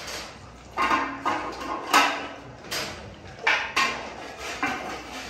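A run of sudden metal clanks and rattles around wire-panel dog kennels, about ten knocks over five seconds, some ringing briefly.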